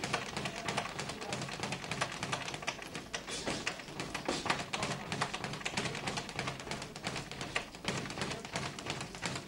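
Boxers sparring in a ring: a dense, irregular patter of taps and light thuds, several a second, from footwork on the canvas and gloves landing, over a faint steady hum.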